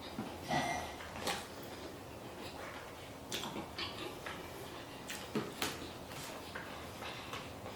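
Close-up eating sounds: chewing and mouth smacks with scattered short clicks, a few sharper ones standing out.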